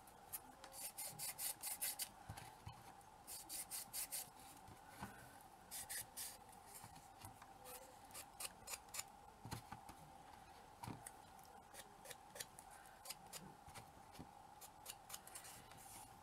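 Short scratchy rubbing strokes in uneven clusters of several a second, from working over a small painted miniature piece by hand, over a faint steady hum.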